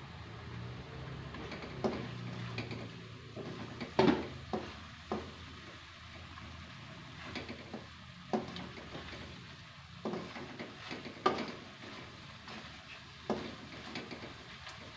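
Spatula stirring ground spice paste frying in oil in a wok, scraping and knocking against the pan every second or two over a steady sizzle; the loudest knock comes about four seconds in. The paste is being sautéed until fragrant.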